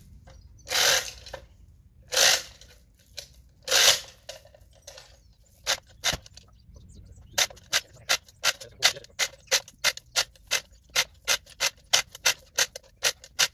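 Manual chain block being hauled to pull a holly stump under load. Three short rattles of chain come in the first few seconds, then the block's ratchet clicks steadily, about two or three clicks a second.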